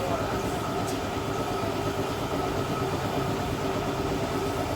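A machine running steadily: a constant low rumble with a steady hum and a thin whine that do not change.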